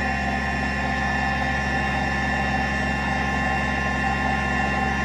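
Kubota BX23S compact tractor's three-cylinder diesel engine running steadily while its backhoe works.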